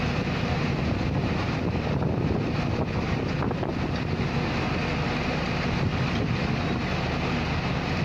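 Steady outdoor city noise: an even low rumble of traffic and wind.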